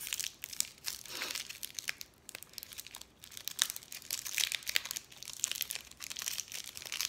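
Foil wrapper of a chocolate bonbon crinkling and tearing in many small, irregular crackles as it is picked open by hand; the wrapper is glued shut.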